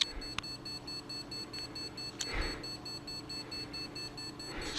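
PC motherboard's POST speaker giving continuous, rapid, evenly spaced short beeps: the memory-error beep code, here from RAM not inserted correctly. A brief rustle comes about halfway through.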